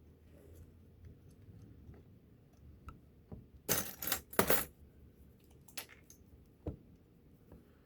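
Small metal tools and parts clinking together on a workbench: a quick jingling cluster of clinks about four seconds in, then a couple of single clicks.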